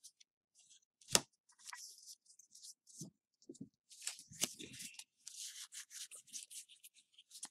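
Pokémon trading cards rustling as they are handled and fanned out in the hands, with a single sharp tap about a second in.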